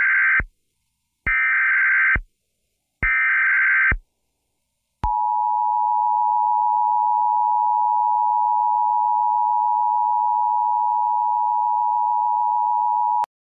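Emergency Alert System broadcast tones: the end of one SAME header data burst and two more buzzing bursts about a second each, then the steady two-tone attention signal held for about eight seconds before cutting off suddenly. The tones open an emergency alert, here a tornado warning.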